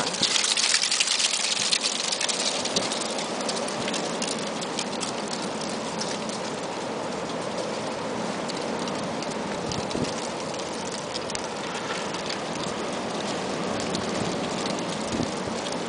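Dry leaves skittering and scraping along a sidewalk in high wind: a steady crackling hiss of many small clicks, loudest in the first couple of seconds.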